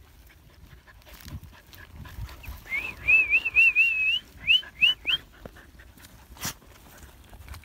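A dog whining in excitement while digging at a rodent burrow: a high, wavering whine lasting a second and a half, then three short rising yelps. Paws scrape and clods of dry dirt click and patter throughout, with one sharper knock near the end.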